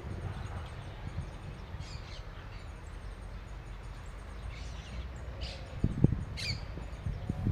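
Wild birds giving scattered short chirps over a low steady rumble, with a thump about six seconds in.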